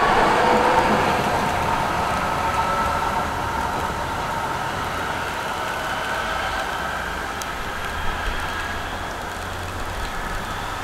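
NJ Transit Hudson-Bergen Light Rail car pulling away. The whine of its electric traction drive rises slowly in pitch as it gathers speed, over wheel and rail noise, and the whole sound fades steadily as the car recedes.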